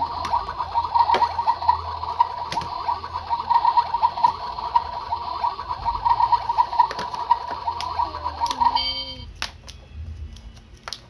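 Toy kitchen's electronic sound effect: a rapid, trilling electronic ring that cuts off about nine seconds in with a short falling tone, followed by a few light plastic clicks.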